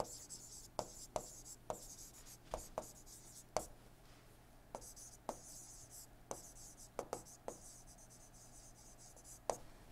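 Stylus writing on an interactive touchscreen board: faint taps and short scratchy strokes, about a dozen, coming irregularly.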